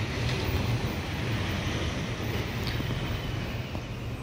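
Wind blowing on the microphone outdoors: a steady rushing noise with an uneven low rumble.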